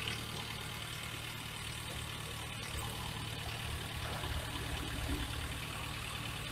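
JCB backhoe loader's diesel engine running steadily with a low hum.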